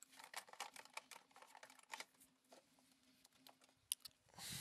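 Quiet, irregular clicking and tapping of small tools and containers being handled on an electronics repair bench, busiest in the first two seconds and thinning out, with one sharper click near the end. A faint steady low hum sits underneath.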